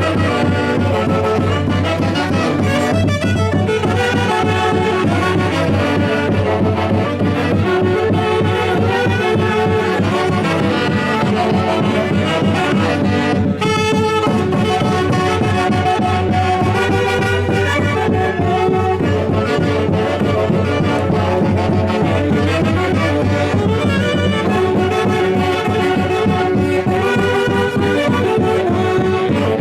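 Wind-band music from a Huancayo orquesta, with brass and saxophone melody lines over a steady beat.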